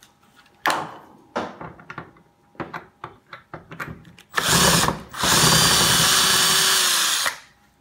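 Power drill driving screws into a TV stand's base. Several clicks and knocks of handling come first, then a short burst of the drill and a longer steady run of about two seconds, its motor pitch falling as it stops near the end.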